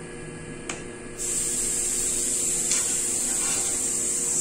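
A steady high hiss that starts suddenly about a second in, after a faint click, and cuts off suddenly about three and a half seconds later, over a faint steady hum.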